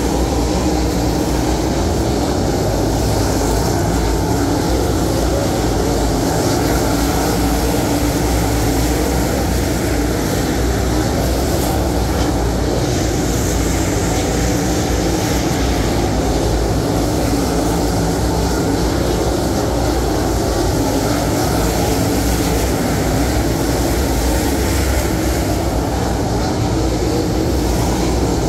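Field of dirt late model race cars with V8 engines running around a dirt oval, a loud steady drone that never lets up.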